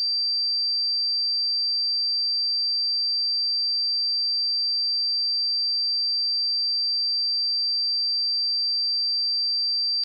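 A steady pure sine-wave test tone at 4692 Hz, one single high pitch with no overtones.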